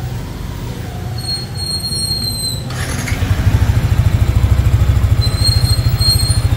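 Yamaha Sniper 155's single-cylinder engine running at idle with its newly fitted radiator freshly filled with coolant; about three seconds in it gets louder and settles into a rapid, even pulse.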